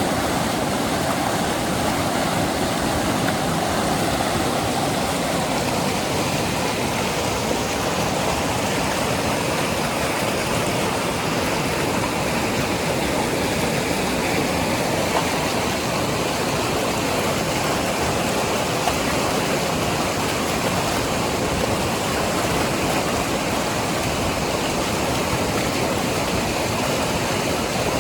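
Lidder River flowing fast, a steady loud rush of water with no break.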